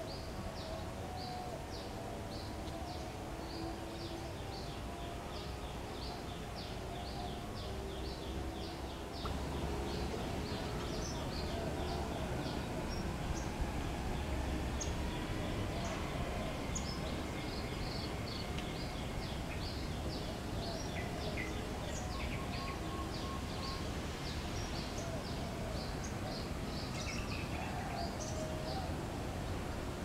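Woodland ambience of wild birds calling in the trees: a steady series of short high chirps, about two or three a second, over softer, wavering calls lower in pitch. A low rumble grows louder about nine seconds in.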